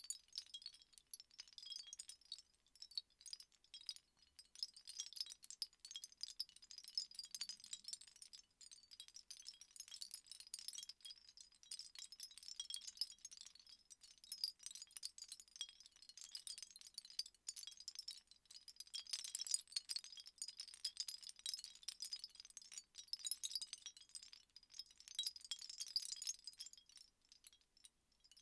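A small hand-held cluster wind chime is gently shaken, its dangling pieces tinkling against each other in a continuous light, high jingle. It swells a little about two-thirds of the way through.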